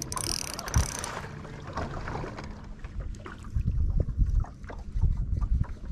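Wind buffeting the microphone and water lapping against a drifting bass boat's hull, in irregular low thumps that are loudest in the second half. A short hiss sounds in the first second.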